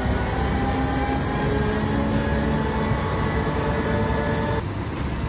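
Vehicle driving: a heavy low rumble with a steady, slowly shifting whine over it. The sound changes abruptly near the end, as at a cut.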